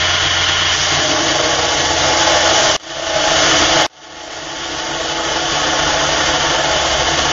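Burr King belt grinder running with a steel knife blade, held in a wooden jig, pressed against the abrasive belt to grind a taper: a steady grinding hiss over the motor's hum. The sound drops out sharply twice for an instant near the middle.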